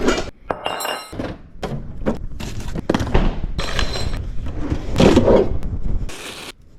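A quick run of knocks, thuds and clatters over a low rumble; the rumble drops away about six seconds in.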